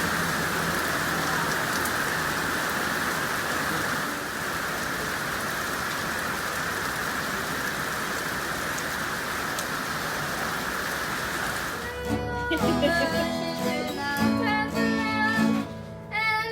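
Steady rain, an even hiss. About twelve seconds in it gives way abruptly to acoustic guitar with singing.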